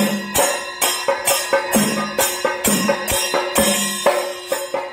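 Chenda melam: chenda drums beaten in fast, even strokes, with ilathalam hand cymbals clashing over them.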